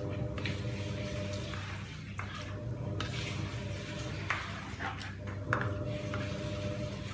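A utensil stirring and scraping in a cooking pot of simmering menudo, with several short clinks, over a steady low hum.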